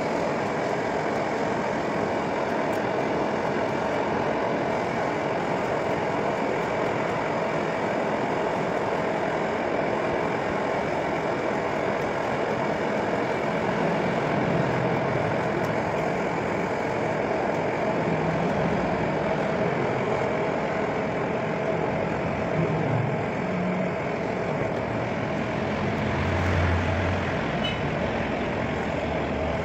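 Steady roar of a blowtorch flame burning without a break.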